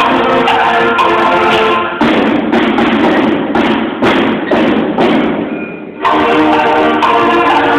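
Sixth-grade concert band of brass, woodwinds and percussion playing in a school gymnasium. Held chords give way about two seconds in to a noisier, percussion-heavy stretch with hits about every half second. This stretch fades out, and the full band comes back in near the end.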